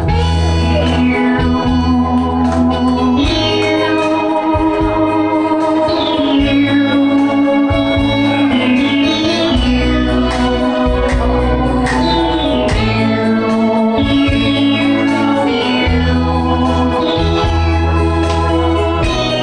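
Instrumental interlude of a trot song's accompaniment: an organ-like electronic keyboard plays held notes and repeated falling runs over a bass line.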